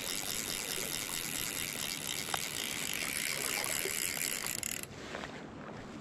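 Fly reel's click-and-pawl drag buzzing steadily with a hooked trout on the line, then stopping abruptly about five seconds in.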